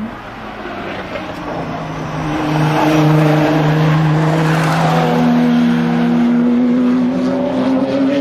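Tuned 600 hp Nissan GT-R R35's twin-turbo V6 through an HKS exhaust, accelerating hard. The engine grows loud about two seconds in and stays loud, and its pitch steps up around five seconds in.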